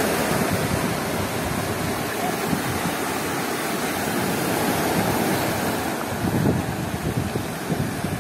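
Stormy Black Sea surf breaking and washing up over a flat rock shore, a steady rush of waves and foam. Wind rumbles on the microphone in gusts in the last couple of seconds.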